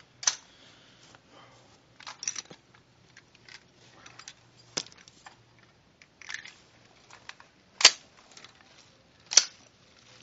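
An AR-15 carbine being handled and loaded: a series of sharp metallic clicks and clacks. The loudest comes about a second in and two more come near the end.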